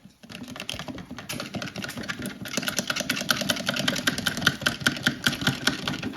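Fast, steady mechanical clicking or rattling, many clicks a second, that grows louder about two and a half seconds in and stops at the end.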